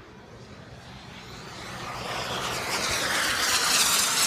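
Jet aircraft passing at an air show: its engine noise swells steadily from faint to loud, a broad rushing sound that peaks near the end.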